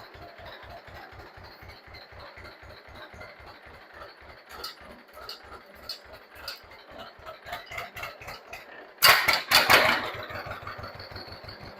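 John Deere 50's two-cylinder engine idling with a steady, even low beat. About nine seconds in, a loud burst of noise lasts about a second over the engine.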